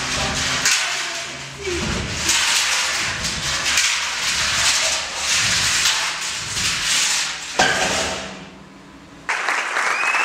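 Empty steel oil drum rocked and rolled on a wooden stage floor: a hollow metallic rumbling with irregular knocks, ending in a heavy thud about seven and a half seconds in. Near the end, applause starts abruptly.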